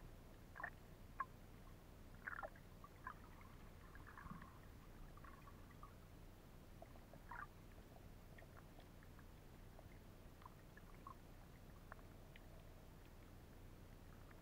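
Faint underwater ambience recorded on a camera below the surface: a low, steady hum with scattered short clicks and a few brief bubbly gurgles, most of them in the first half.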